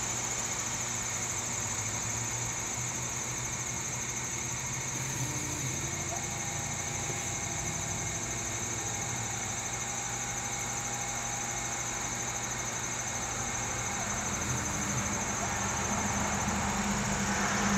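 Stepper motor turning a self-centering turntable as a laser engraver's rotary axis, running during a rotary test, with a thin steady whine that starts about six seconds in and stops halfway through. Under it runs a steady machine hum with a high whine.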